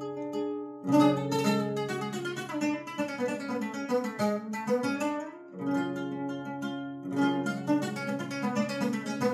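A bandola played solo: strummed chords about a second in and again near six and seven seconds, with quick runs of plucked single notes between them.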